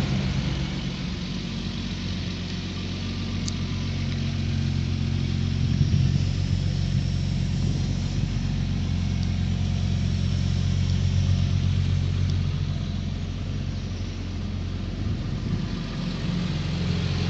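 Mercedes-Benz W111 250SE's straight-six engine idling steadily, swelling slightly a couple of times.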